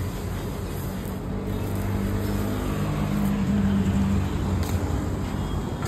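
A motor vehicle engine running steadily amid street traffic noise, a low hum that swells slightly partway through.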